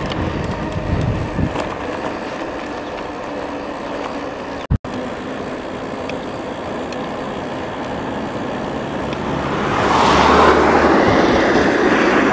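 Steady wind and road noise heard while riding a bicycle, louder from about ten seconds in, with a momentary break near the middle.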